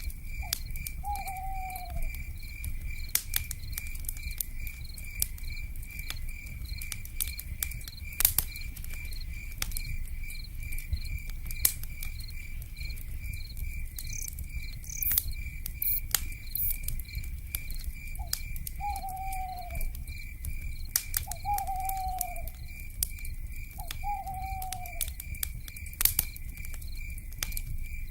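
Wood fire crackling with scattered sharp pops over a low rumble, under a steady, pulsing insect trill. A short falling owl call sounds once near the start and three more times a few seconds apart in the second half.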